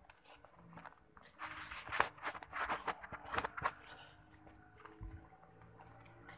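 A run of close scuffs and rustles, bunched between about one and four seconds in, then a single low thump about five seconds in.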